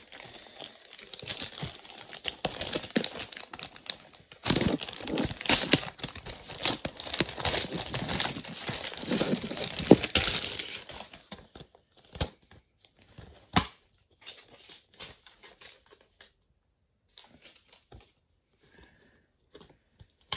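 Packaging crinkling and tearing as a package is unwrapped by hand for about ten seconds, then only scattered light taps of handling.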